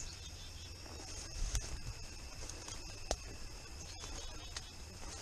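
Steady high trilling of insects such as crickets in the woods, with a few short sharp snaps and rustles of brush as someone moves through it, over a low rumble.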